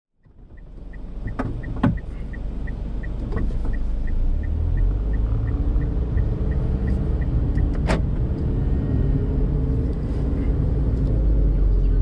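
Daihatsu Mira Tocot kei car heard from inside the cabin, its engine and road rumble building as it gets under way, with the turn-signal indicator ticking about three times a second until about seven and a half seconds in. A few knocks near two seconds in and a sharp click about eight seconds in.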